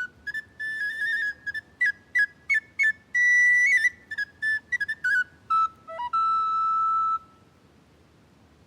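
Solo recorder playing a quick passage of short repeated notes and little trills, ending on a long held note that stops about seven seconds in.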